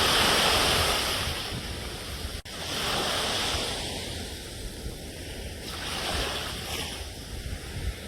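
Sea waves breaking, the surf swelling and falling back in repeated surges, with a split-second dropout about two and a half seconds in.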